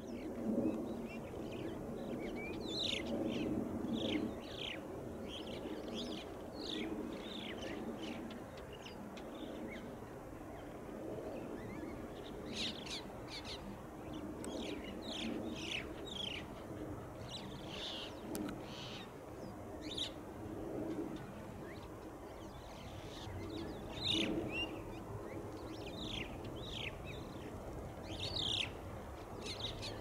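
A flock of crested mynas calling, with many short, high calls overlapping throughout over a low steady rumble.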